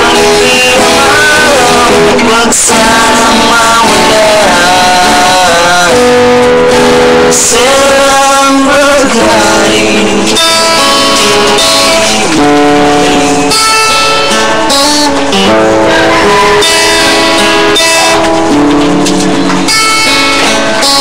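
Acoustic guitar played continuously, with a man's voice singing along in places.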